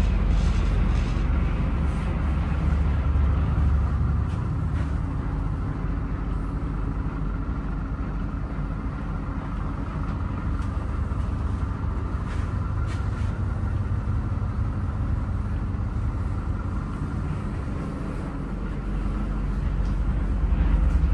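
MAN TGL 8.220 truck's four-cylinder diesel engine idling with a steady low rumble.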